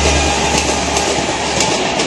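Coaches of a Duronto express train running past at speed, with a steady rush of wheels on rail and a few sharp clicks as the wheels cross rail joints. A low hum fades away about a second in.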